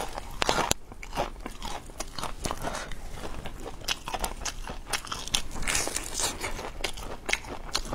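Crisp, irregular crunching as a crumb-coated fried chicken cutlet is bitten into and chewed.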